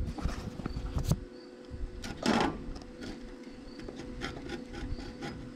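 Crackling sparks where the electrolysis power lead makes and breaks contact with rusty steel tractor sheet metal in the tank: short irregular clicks, with a louder crackle about two seconds in, over a faint steady hum.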